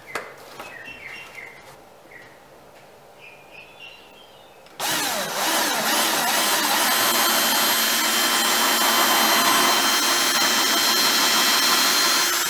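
Cordless drill with a 1/8-inch bit drilling out cured epoxy-filled screw holes in a fiberglass deck. After a few faint handling clicks, it starts about five seconds in, runs steadily, and stops at the end.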